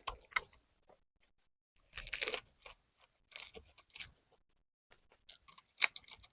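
Close-miked chewing and crunching of a rice-paper roll of steamed mackerel scad with fresh lettuce, herbs and cucumber, in three or four crackly bursts with short pauses between them.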